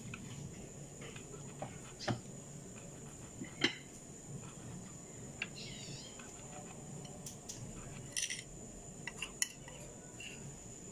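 A few scattered clinks and knocks of a utensil against a metal cooking pot holding lamb offal, over a faint steady low hum.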